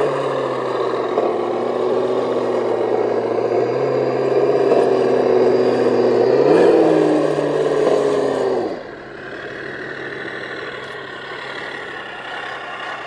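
Radio-controlled scale trucks running, a steady engine-like drone with one brief rise in pitch about six and a half seconds in. A little under nine seconds in it drops suddenly to a quieter, steadier drone.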